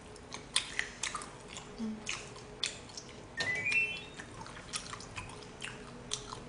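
Close, wet chewing and lip-smacking on jokbal (braised pig's trotters): a string of short sticky clicks at irregular intervals. A brief rising run of high tones sounds about three and a half seconds in.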